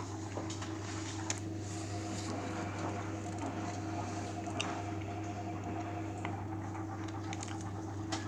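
Beko WMA 1510 W washing machine running a 60°C eco wash: steady motor hum with wet laundry tumbling in the drum and a few faint clicks.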